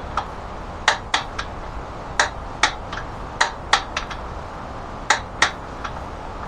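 Sharp metallic clicks in small groups of two or three at the main caps of a 350 small-block's crankshaft, during the bolt torquing and crank-turning checks.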